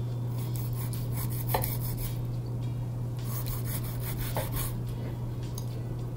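A kitchen knife drawn through the skin of a whole pompano on a wooden cutting board: two raspy scoring strokes, each ending with a tap of the blade on the board. A steady low hum runs underneath.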